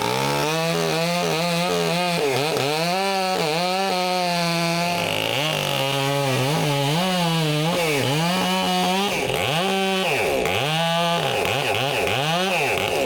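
Chainsaw running at high revs, cutting through a large cherry lead. Its engine pitch sags and recovers over and over as the saw bogs in the cut and picks up again, with quicker dips near the end.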